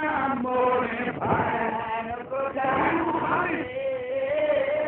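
A man's voice chanting a zakir's melodic majlis recitation in a sung, wavering style, holding one long wavering note near the end.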